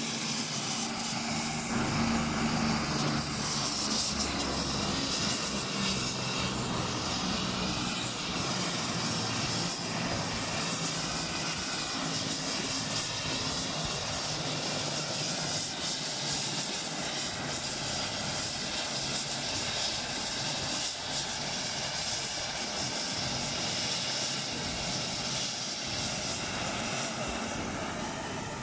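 Aircraft engine running steadily, a continuous engine noise with a low hum.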